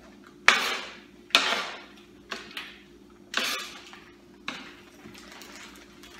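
About six irregular sharp knocks and clatters of cooking utensils and dishes being handled, over a steady low hum.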